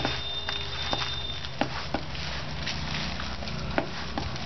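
Hands squishing and kneading a soft, wet fenugreek dough in a stainless steel bowl, with irregular light taps and clicks as fingers and dough knock against the bowl.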